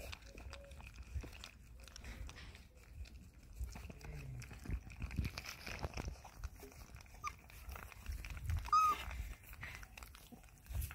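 Several one-month-old puppies lapping and slurping milk from a bowl together: a busy, irregular run of small wet clicks. A brief high squeak comes about nine seconds in.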